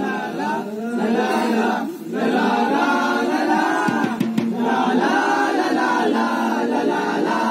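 A group of voices singing together in held, chant-like lines, with a brief break about two seconds in.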